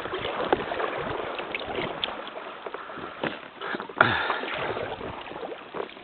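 Paddle strokes beside an inflatable kayak: blades dipping and water splashing and dripping, with small clicks throughout and a sharp knock about four seconds in.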